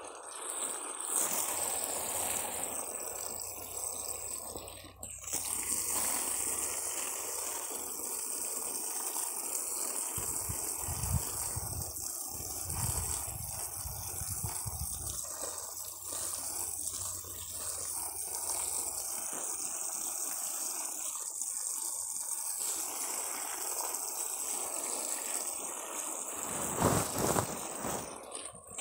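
Water gushing steadily onto plants as they are watered, with a short break about five seconds in. Low rumbling bumps come and go in the middle, and a louder bump sounds near the end.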